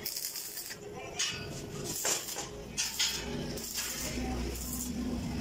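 Short metallic clinks and taps, several times about a second apart, from work on a steel tube chair frame.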